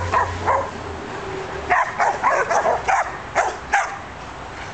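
Several Australian Shepherds barking in short, sharp volleys: a few barks at the start, a pause of about a second, then a quick run of overlapping barks that stops a little before the end.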